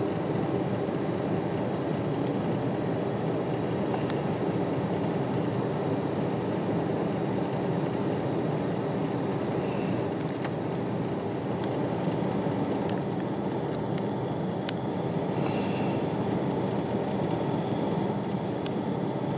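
Steady low hum of road traffic and an idling car engine, heard from inside a car.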